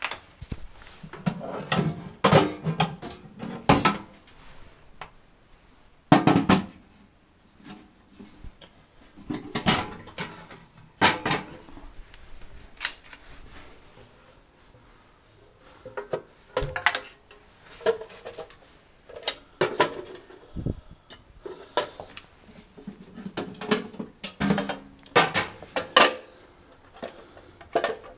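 Irregular knocks, clatters and rubbing close to the microphone, typical of a camera being carried or handled against clothing.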